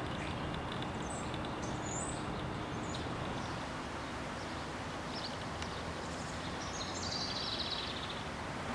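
Outdoor ambience: a steady low background rumble with small birds chirping over it, a few quick high chirps about two seconds in and a longer warbling phrase near the end.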